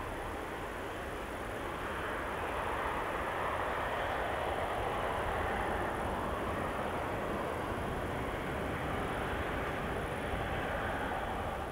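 Boeing 777 freighter's twin GE90 jet engines at taxi power as it lines up: a steady, distant rush of jet noise with a low rumble, swelling slightly a few seconds in.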